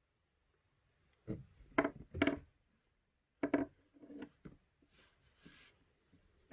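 Several short knocks and clatters of small parts and tools being handled on a workbench, a few close together, then a brief soft hiss.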